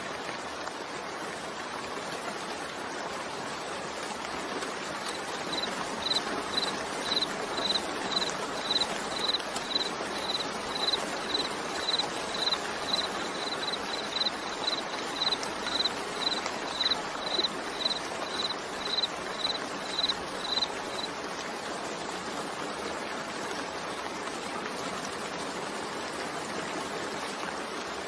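Steady soft rain noise. From about five seconds in, a high-pitched pip repeats about twice a second for some fifteen seconds, then stops.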